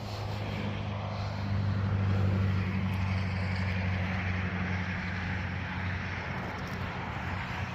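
A distant engine droning steadily, growing louder about two seconds in and then slowly fading.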